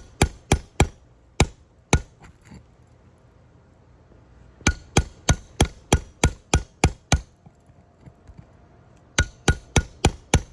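Shingle hammer striking a nail puller to draw a roofing nail from an asphalt shingle: sharp metallic blows, about three a second, in three bursts: a few at the start, a run of about nine in the middle and about five near the end.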